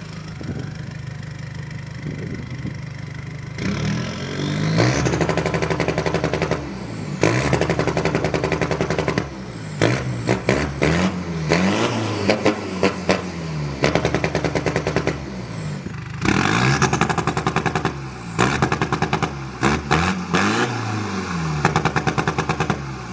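Modified Toyota 2KD-FTV 2.5-litre four-cylinder turbodiesel revved hard again and again, rising and falling in pitch with a rapid stutter. It is first revved with launch control off, then held on the piggyback ECU's launch control, which catches the revs while brake and throttle are both applied.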